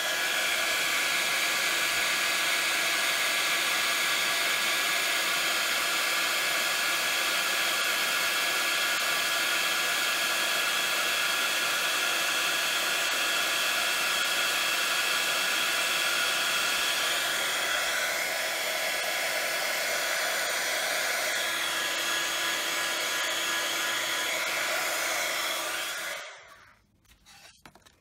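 Handheld craft heat gun blowing steadily as it melts embossing powder on stamped cardstock. It is switched off about two seconds before the end, followed by a few light knocks.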